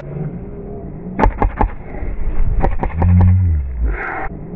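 Airsoft guns firing in short rapid bursts of sharp cracks, starting about a second in and again a little later. A brief loud low rumble comes in the middle.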